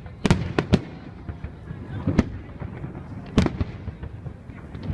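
Fireworks going off: a series of sharp, irregular bangs, three in quick succession in the first second, another about two seconds in, and a pair near three and a half seconds.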